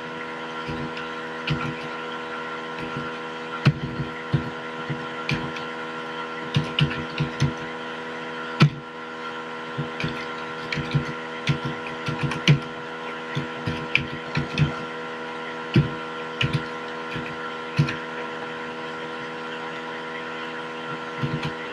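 Computer keyboard keys clicking irregularly as text is typed, over a steady electrical hum made of several fixed tones.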